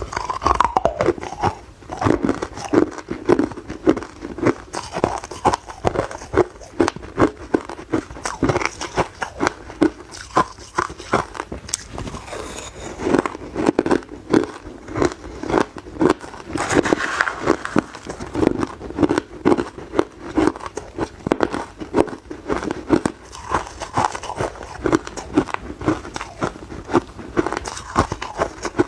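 A person biting and chewing hard ice close to the microphone: a steady stream of irregular sharp cracks and crunches.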